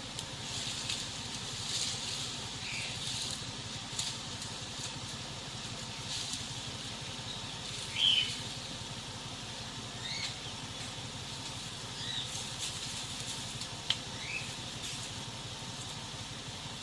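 Steady low hum of a honeybee swarm, with short bird chirps every couple of seconds, the loudest about eight seconds in.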